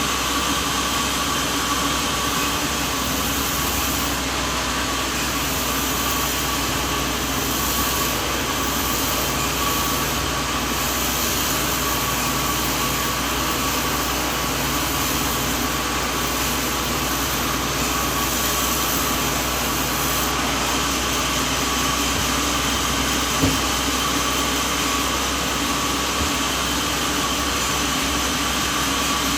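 Sawmill machinery running steadily: a continuous mechanical hum with a few held tones, and one small click about 23 seconds in.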